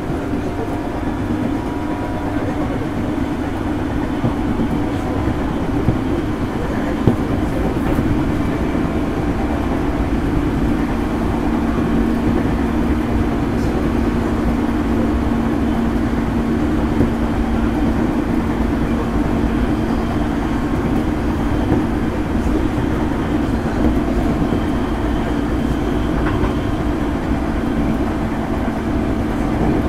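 JR East 205 series electric train running between stations: a steady rumble of wheels on rail and traction motors. A steady hum stands out for about ten seconds in the middle, and there are two sharp clicks about six and seven seconds in.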